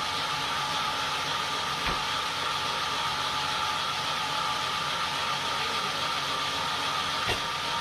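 Sawmill saw running steadily, a constant hissing noise with a steady high hum, and a couple of faint knocks.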